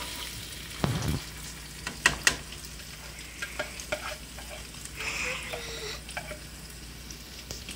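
Chopped onion sizzling as it fries in hot oil in a wok. A spatula taps and scrapes against a bowl as the last of the onion is scraped in, with a few sharp taps about two seconds in.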